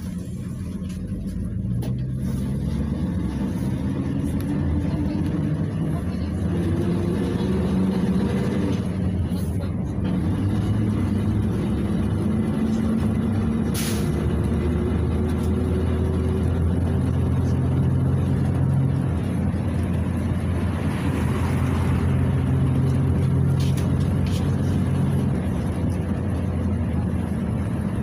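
A PAZ 32054 bus's ZMZ-5234 V8 petrol engine, heard from inside the passenger cabin, pulling the bus along, its note rising several times and dropping back as it accelerates through the gears. A single sharp click comes about halfway through.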